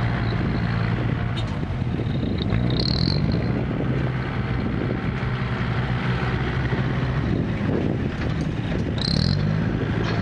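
Six-wheel dump truck's diesel engine running as the truck drives and manoeuvres, its pitch shifting as it drives, with two brief high squeaks, about three seconds in and near the end.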